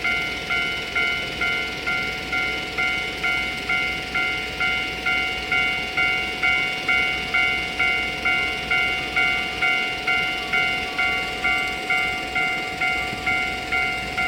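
Japanese railway level-crossing alarm ringing, an electronic bell striking steadily about twice a second to warn of an approaching train.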